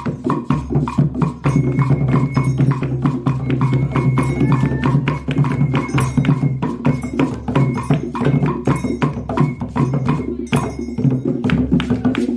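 Traditional Igbo percussion music: small hand drums and sharp, clacking percussion beating out a fast, steady rhythm.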